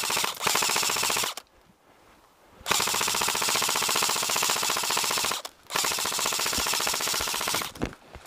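ICS-25 airsoft electric gun firing three long full-auto bursts, each a fast even rattle of shots lasting about one and a half to two and a half seconds, with short pauses between. It is laying down covering fire.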